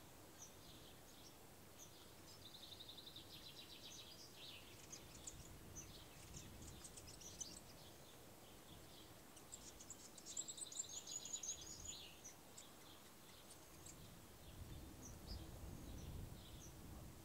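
Quiet rural ambience with small birds chirping and calling here and there, including two rapid trills, the louder one about ten seconds in. A faint low rumble rises near the end.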